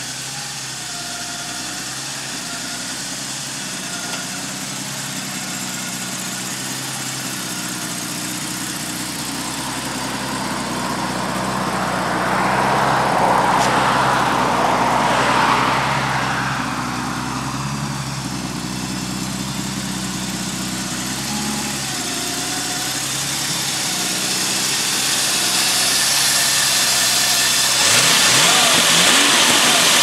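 Jaguar E-type's 5.3-litre V12 idling steadily, swelling louder for a few seconds about halfway through. Near the end the engine is blipped and revved, its pitch rising.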